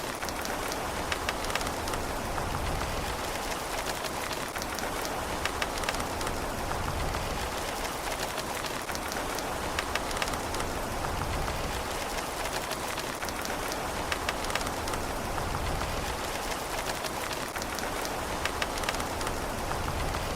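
Steady rain falling on a surface, a constant hiss with many sharp individual drop ticks and a low rumble that swells and eases every few seconds.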